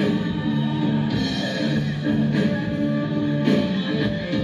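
Background music: rock with guitar, chords changing about every second.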